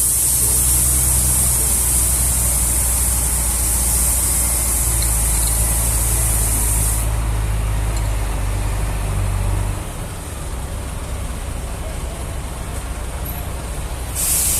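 A long, loud hiss of air, over a steady low machine hum. The hiss stops about seven seconds in, the hum stops about ten seconds in, and the hiss starts again briefly near the end.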